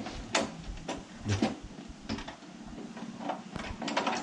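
Scattered clicks and light metallic knocks from hands working the stiff lock and lid of a black metal cash box.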